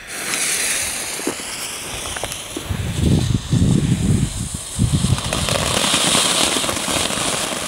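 A Weco Flitze Feuerstein mini volcano, a small category 1 firework fountain, hissing steadily as it sprays sparks. A few louder, uneven low puffs come about three to five seconds in.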